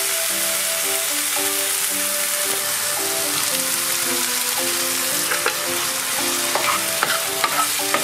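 Garlic, vegetables and mushrooms sizzling steadily in an oiled frying pan, with canned oysters added in their liquid. A few light clicks of stirring come near the end.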